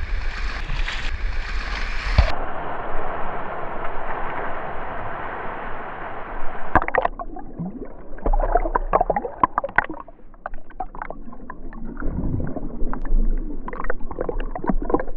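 Rushing, splashing sea water around a cased action camera, turning muffled and dull about seven seconds in as it sounds from under the water, with gurgling and many short clicks and pops of bubbles.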